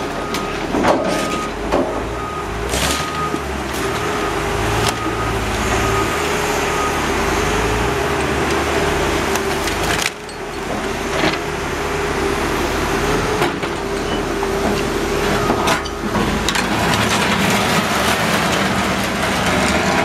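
Heavy-equipment engines (a Caterpillar wheel loader and a grapple excavator) running steadily under work, with a reversing alarm beeping at an even pace for the first several seconds. Occasional bangs and scrapes of debris being pushed and grabbed.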